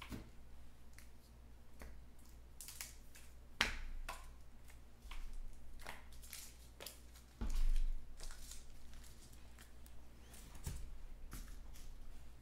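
Trading cards being handled and sorted on a table: scattered clicks, taps and slides as cards and stacks are squared up and set down, with one louder dull thump about seven seconds in.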